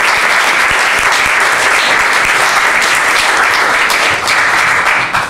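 Audience applauding: dense, steady clapping that dies away right at the end.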